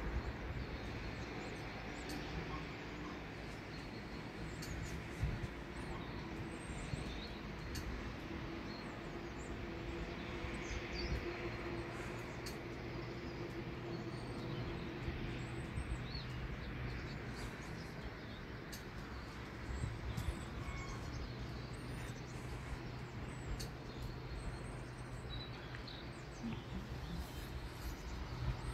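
Steady outdoor background noise with a faint low hum, and scattered faint bird chirps now and then.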